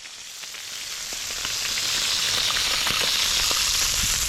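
Salmon fillets sizzling in hot olive oil on a barbecue hotplate: a steady frying hiss with many small crackles, swelling over the first second or two and then holding.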